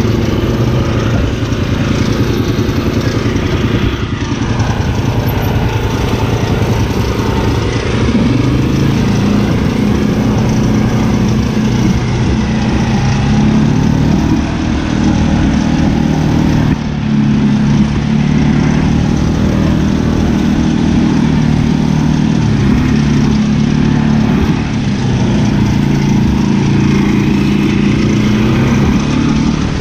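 Engine of a pull-behind brush mower running continuously while mowing, its pitch rising and falling a little every few seconds.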